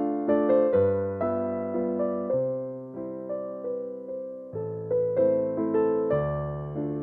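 Background piano music: a melody of struck notes, each fading away, over bass notes that change about once a second.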